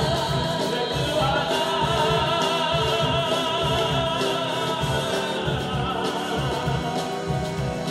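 A group of singers singing a Christian worship song into microphones over amplified music with a steady beat.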